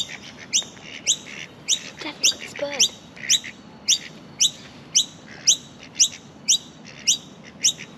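Lorikeet giving a short, sharp rising chirp over and over, evenly spaced at about two a second.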